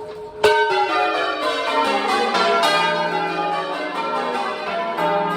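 A ring of ten church bells, with a tenor of about 20 cwt in E-flat, being change-rung and heard from inside the belfry. The strikes start about half a second in and follow one another in quick, even succession, each bell ringing on into the next.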